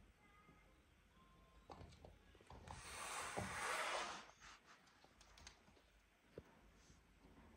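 Kittens at play: light scattered clicks and taps of paws and claws on a wooden floor and metal birdcages, with a brief rustling scrape about three seconds in.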